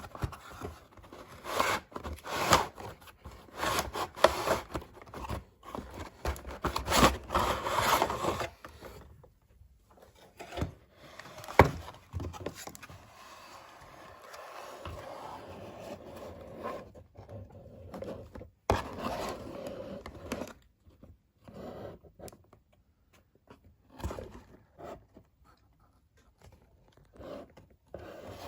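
Hands working at toy packaging during an unboxing: irregular rubbing and scraping, busy at first and then sparser and quieter, with one sharp click partway through.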